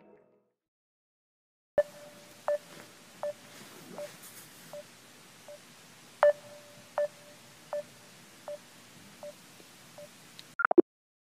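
Phone call ringing out: a mid-pitched beep repeated about every three-quarters of a second, each run starting loud and fading away, heard twice over. It cuts off near the end with a brief chirp.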